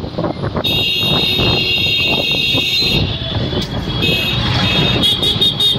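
Road traffic with a continuous low rumble, cut through by a shrill, steady high-pitched electronic tone lasting about two seconds, and a shorter broken burst of the same tone near the end.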